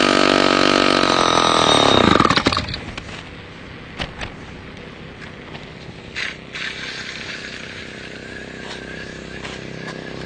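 Two-stroke chainsaw engine on a home-built chainsaw bike running at high revs, then its pitch drops and the sound falls away sharply about two and a half seconds in. A few faint knocks follow.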